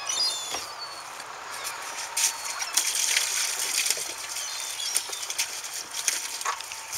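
Beach ambience: a steady hiss of wind and surf, with scattered knocks and clatter of fish being handled in plastic buckets and crates, and a few short high bird chirps in the first second.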